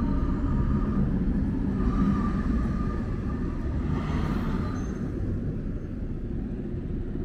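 Prague tram running, heard from inside the car: a steady low rumble of the wheels on the track with a faint whine above it.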